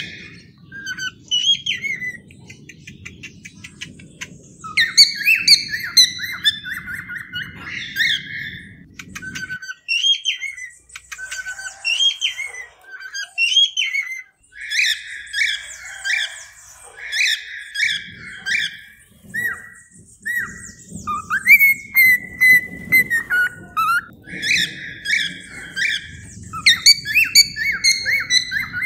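Cockatiels chirping and whistling: many short repeated calls and warbling whistles that glide up and down. A low background rumble runs beneath them and drops out for several seconds in the middle.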